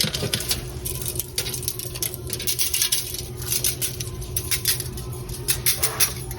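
Hands patting and rubbing seasoning onto raw pork ribs: many light, irregular taps and pats, with a steady low hum underneath.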